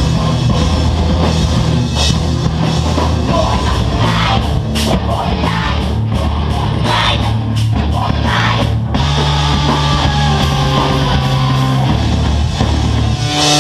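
A live rock band playing a loud, heavy song: distorted electric guitars and bass over a drum kit, with frequent cymbal crashes.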